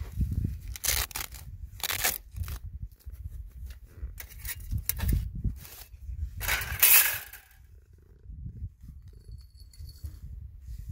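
Flat metal plates clanking and scraping against one another as they are handled and stacked, with several sharp knocks and a longer, loudest scrape about seven seconds in. A low rumble runs underneath throughout.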